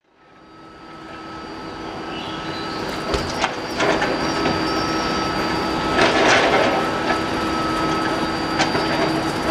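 CFL Stadler KISS double-deck electric train standing at the platform with its onboard equipment humming steadily in several fixed tones. Sharp knocks sound a few times, and a short louder noisy burst comes about six seconds in.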